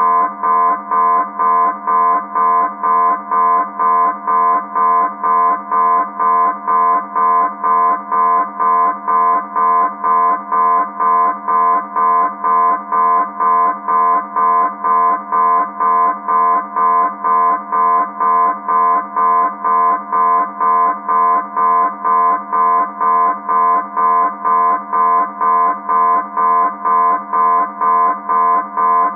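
Military submarine alarm going off: a loud, buzzy horn tone pulsing on and off about twice a second at one steady pitch, repeating without change.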